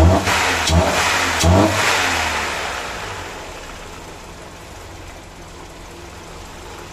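Mercedes-Benz M102 2.0-litre inline-four with individual-cylinder fuel injection, partly warmed, blipped by hand at the throttle three times in quick succession. It then settles back to a steady idle.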